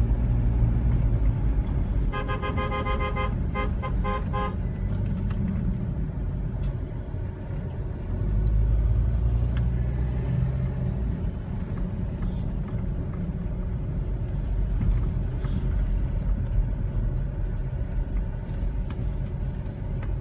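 Steady low rumble of a car driving, heard from inside the cabin. About two seconds in, a vehicle horn sounds: one held honk, then a quick run of about four short toots.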